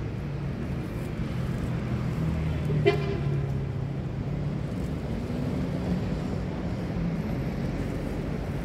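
Steady low hum of street traffic and engines, with one short car-horn toot about three seconds in.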